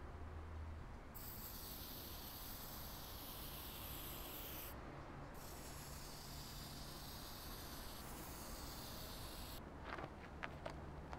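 Aerosol spray-paint can hissing in long bursts: it starts about a second in, breaks off briefly about five seconds in, and stops near the end. A few short, sharp clicks and scrapes follow near the end.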